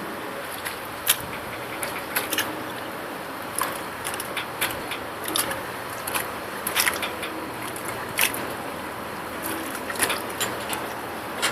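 Steady rushing noise on board a moving water taxi, with frequent irregular sharp clicks and rattles.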